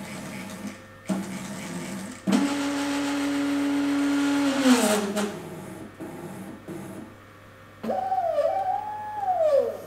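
Joint motors of a 3D-printed six-axis robot arm driving a lower axis. A steady whine comes in a couple of seconds in with a loud rushing noise over it, then slides down in pitch as the move slows. Near the end, higher whines rise and fall as another joint moves. The builder puts the loud noise on this lower axis down to the big cage of the roller bearing in the base.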